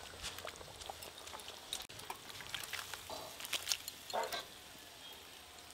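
Faint clinks and taps of a steel karai and tongs as thick curry with fried patties is tipped out into a steel bowl. A short faint animal call sounds about four seconds in.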